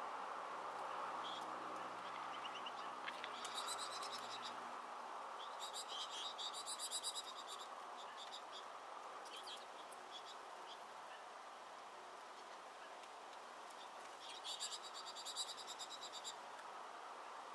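Small finches at a seed feeder twittering in bursts of rapid high notes, about three and a half seconds in, again from about five to seven seconds, and near the end, over a steady background hiss.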